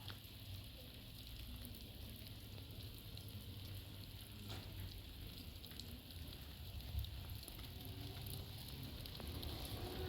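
Light rain falling, a faint steady crackling hiss.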